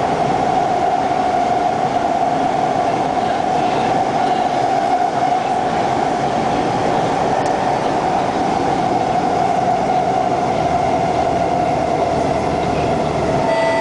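SMRT C151 metro train running at speed through an underground tunnel, heard from inside a crowded car: steady rail and running noise with a strong steady tone through it. Near the end a few higher steady tones join in.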